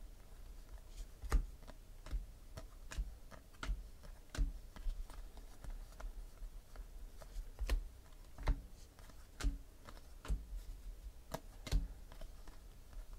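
Football trading cards being flicked one at a time off a hand-held stack: irregular light clicks and taps, one or two a second, a few of them sharper.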